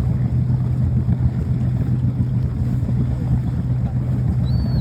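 A steady low motor drone with wind rumble runs throughout. A short high chirp, rising then falling, comes near the end.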